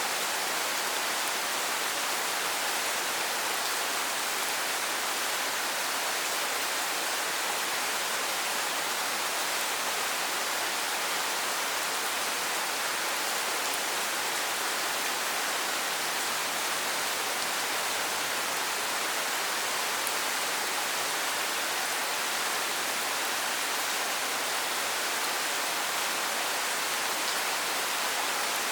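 Steady heavy rain falling, an even hiss with no distinct drops or other events.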